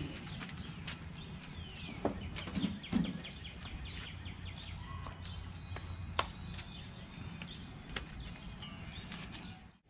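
Scattered knocks and clunks of a Craftsman LT1000 lawn tractor being tipped over onto its side, the loudest about two to three seconds in, with birds chirping in the background.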